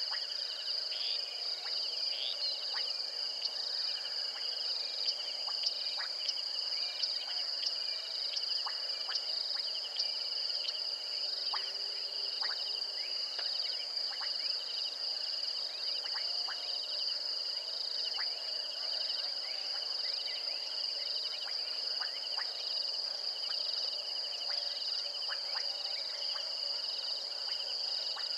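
Night chorus of insects: a steady high-pitched trilling with a second, lower trill beneath it, and short clicks scattered throughout.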